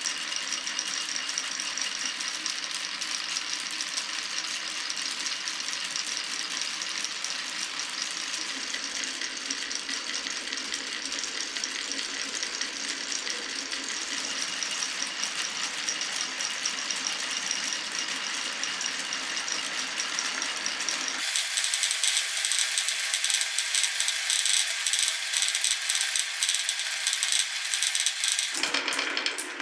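Marbles rolling and clattering continuously along a marble run track, a dense rattle of many small clicks. About two-thirds of the way through it changes abruptly to a brighter, thinner and slightly louder rattle.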